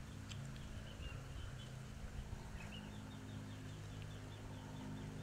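Outdoor ambience: a steady low hum under a faint hiss, with a quick run of short, high chirps about halfway through.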